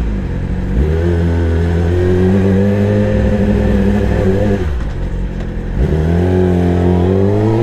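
Yamaha R6's 599 cc inline-four engine under way, climbing in revs about a second in and then held steady. Near five seconds in the throttle is closed and the revs drop for about a second, then they climb again toward the end.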